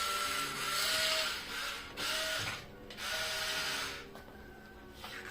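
Small electric motors of a wall-climbing anti-gravity toy car whirring with a hiss, in three short bursts that start and stop as the car is steered, dropping away after about four seconds.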